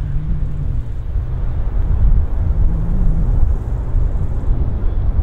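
Low, steady rumble of a landing airliner, recorded from the ground.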